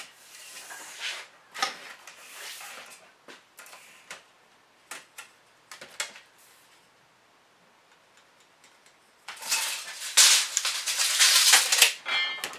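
Tape measure and board handling: scattered light clicks and scrapes, then about three seconds of loud metallic rasping rattle near the end, fitting a steel tape measure blade winding back into its case.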